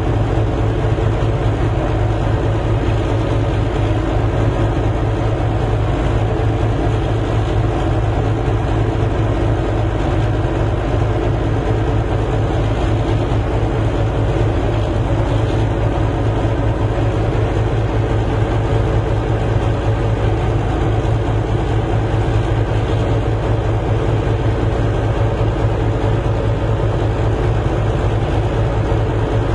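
A large engine or machine running steadily: an even, unbroken low drone with a few constant tones above it.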